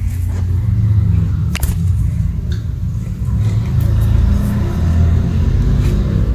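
Loud, steady low rumble whose pitch shifts every second or so, with a sharp click about a second and a half in.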